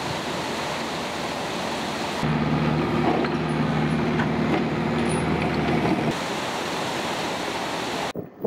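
Heavy diesel engine of the lifting plant running steadily over a constant rushing outdoor background, starting about two seconds in and stopping about six seconds in, with a few faint knocks while it runs.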